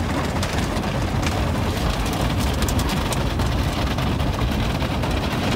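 Automatic car wash heard from inside the car: water and washing gear hitting the body and windows in a steady wash of noise, heaviest in the low end, with scattered sharper taps.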